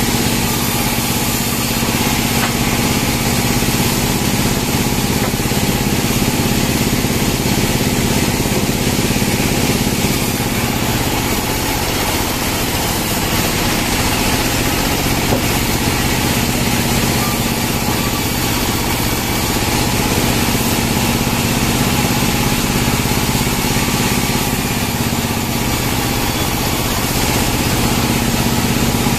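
Band sawmill's engine running at a steady speed, a constant mechanical hum with a fixed tone and an even low pulse, without rising or falling.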